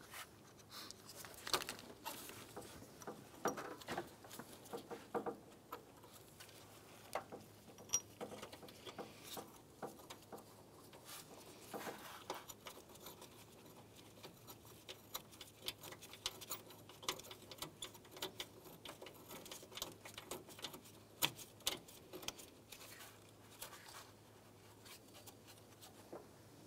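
Light, irregular clicks, taps and scrapes as gloved hands handle a metal radiator mounting bracket and thread its bolt in by hand.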